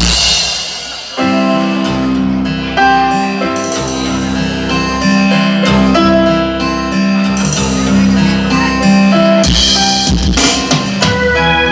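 Instrumental music with a steady bass line and drums, opening with a cymbal-like crash and with a second crash about ten seconds in.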